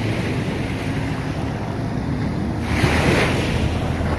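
Wind buffeting the microphone over the low, steady hum of an idling engine, with a louder rush of wind or water noise about three seconds in.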